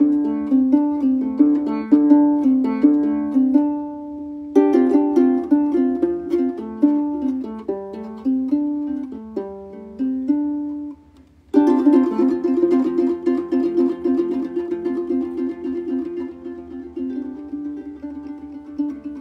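Plucked melody on a gourd-bodied harp with many strings. The notes stop briefly about four seconds in and again past the middle, then go on as a quick, rippling repeated figure that slowly fades.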